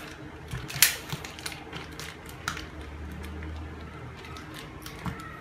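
Scattered clicks and rustles of a shipping parcel being handled and worked open, with one sharper click about a second in.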